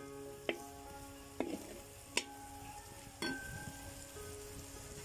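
Shallots, coconut bits and ginger-garlic paste sizzling as they fry in oil in a wide pan. A slotted metal spoon stirs them, knocking and scraping against the pan about four times.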